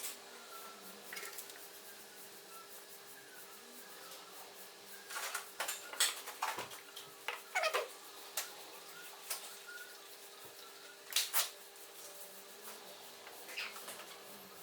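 Scattered sharp clicks and knocks over a faint steady hum, loudest in a cluster about five to eight seconds in and once more about eleven seconds in.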